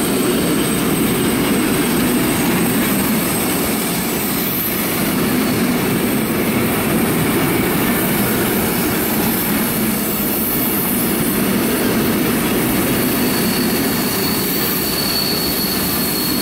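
Freight train of tall covered sliding-wall wagons rolling past at close range: a steady loud rumble and rush of steel wheels on rail. A faint high wheel squeal comes in near the end.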